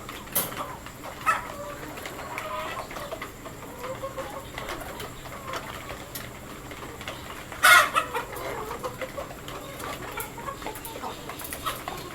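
A flock of desi backyard chickens clucking, with many short, irregular calls, and one loud, brief burst about seven and a half seconds in.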